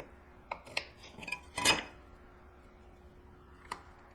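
Hand-tool work on a walnut workpiece while the pin part is chiselled: a few sharp clicks and knocks, the loudest about one and a half seconds in, and one more near the end.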